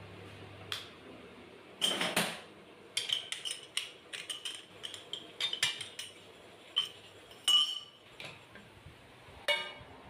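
Sharp metal clinks and knocks, a dozen or so, as a motorcycle wheel is unclamped from a lathe's four-jaw chuck and lifted off. The lathe's low hum dies out just at the start.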